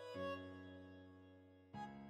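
Quiet intro music of held, sustained notes. It fades away just after the middle, and a new phrase begins near the end.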